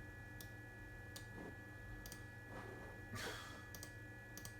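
Computer mouse buttons clicking, about six single clicks spaced irregularly, over a steady hum. There is a short breathy swish a little past halfway.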